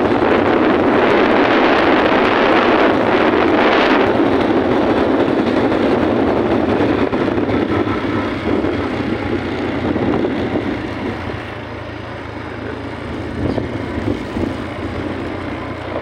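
Wind rushing over the microphone of a phone on a moving motorbike, with the bike's engine running underneath. The rush is loud at first and drops off after about eight seconds.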